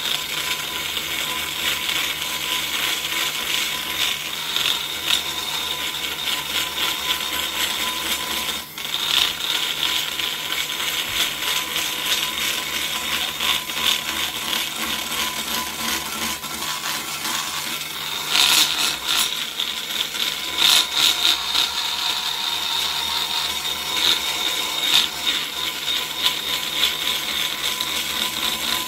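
DeWalt die grinder spinning a flame-shaped carbide burr against the cast-iron port of a Vortec cylinder head, porting the short side radius: a steady high whine with a scraping rasp that swells and eases as the burr is worked, dipping briefly about a third of the way in.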